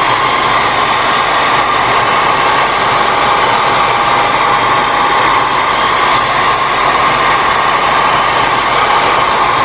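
Hair dryer running steadily, a loud even rush of air with a steady whine, blowing hot air to soften the glue under an iPad battery.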